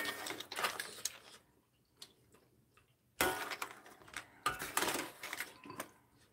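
A person slurping and chewing clam sujebi (Korean hand-torn dough soup) from a spoon: wet, clicky mouth sounds in three spells, at the start, about three seconds in and again about a second later.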